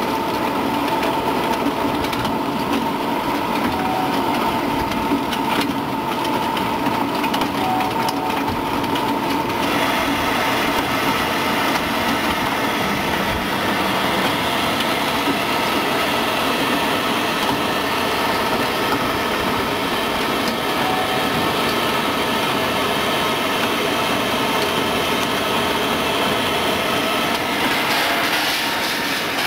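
Continuous peanut frying line running: steady machine noise from its drive motors and stainless-steel mesh conveyor belt, with a faint steady whine. The sound changes in character about ten seconds in.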